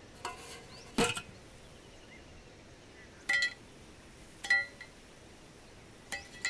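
A handful of short, sharp metallic clinks and knocks at uneven gaps, some with a brief high ring; the loudest is about a second in.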